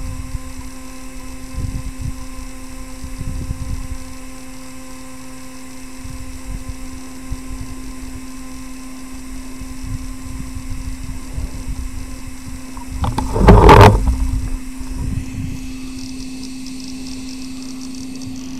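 Wind buffeting the helicopter-mounted camera's microphone over a steady low hum of constant pitch. About 13 to 14 seconds in there is a loud, brief rush of noise, the loudest moment, followed by a hand reaching over the camera near the end.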